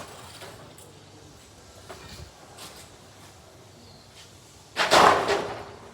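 A couple of light knocks, then one loud bang with a short rattle about five seconds in.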